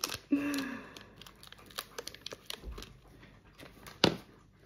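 Packaging of the hot chip being handled and opened: light, scattered crinkling and small clicks. A short murmur comes about half a second in, and a sharper click about four seconds in.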